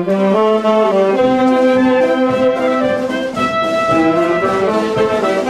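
Saxophone and brass instruments playing together, a melody in long held notes over several parts at once.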